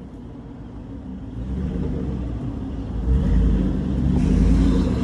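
Pickup truck engine running and growing louder as the truck pulls past close by, a low rumble that swells about halfway through.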